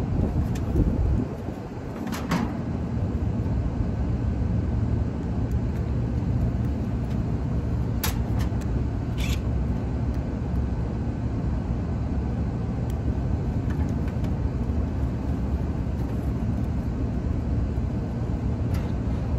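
Steady low mechanical hum, with a few short clicks and taps from hand work.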